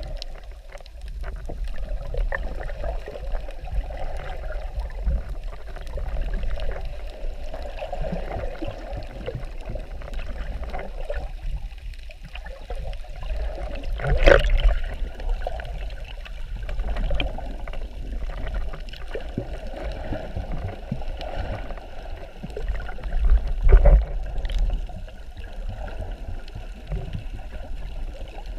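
Underwater sound picked up through a camera's waterproof housing: muffled water sloshing and gurgling over a steady low rumble. Two louder knocks come through, one about halfway and another some nine seconds later.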